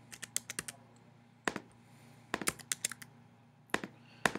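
Computer keyboard keys tapped in short bursts of a few strokes each, with single clicks between the bursts.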